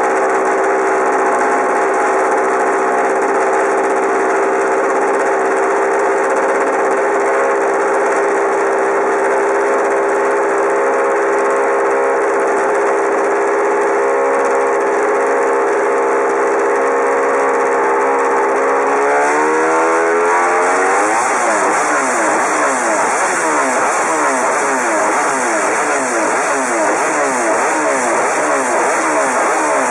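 MotoGP motorcycle engine running close to the microphone, holding a steady note. About two-thirds of the way through, the pitch shifts and the engine is revved in quick repeated blips, each a short rising sweep.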